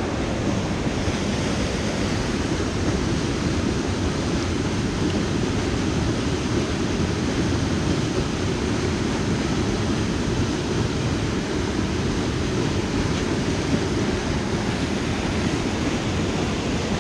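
Steady rushing of a small stream's water close to the microphone.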